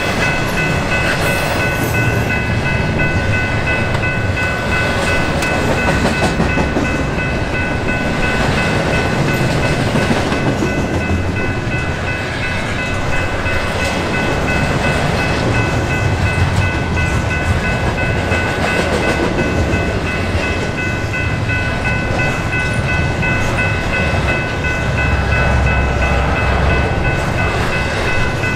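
BNSF freight train rolling past, a steady loud rumble of wheels on rail with a steady high-pitched whine over it.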